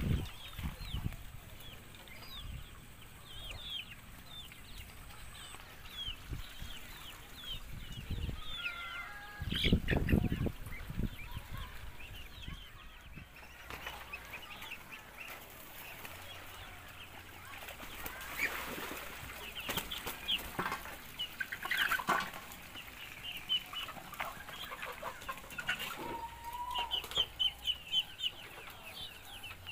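Domestic chickens, roosters and hens, clucking around a coop, with many short high chirps throughout. A brief low rumble stands out about ten seconds in.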